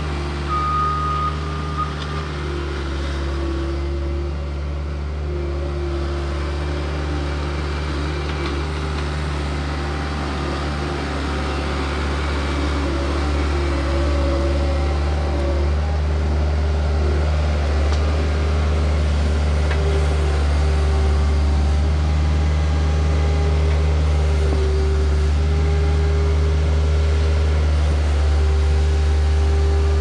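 Bobcat skid-steer loader's engine running steadily as it carries a bucket of topsoil, growing louder in the second half as it comes closer. A short high beep sounds about a second in.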